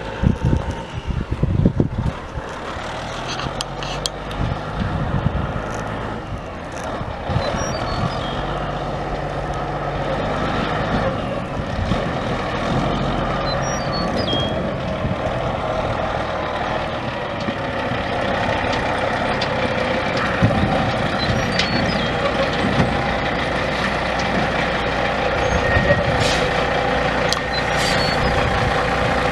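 Caterpillar 3406 14.6 L inline-six turbo diesel in a dump truck, running steadily and growing gradually louder, with a few sharp knocks in the first two seconds.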